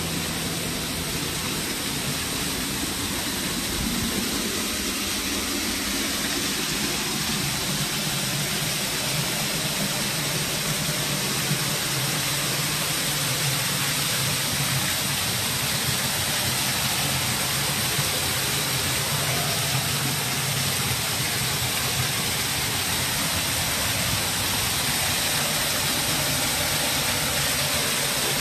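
Steady rush of falling water from a small waterfall splashing down the rock.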